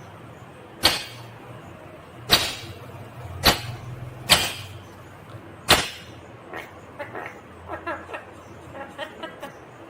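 Indian ringneck parakeet giving five loud, sharp screeches a second or so apart, then softer, rapid chattering calls in the second half.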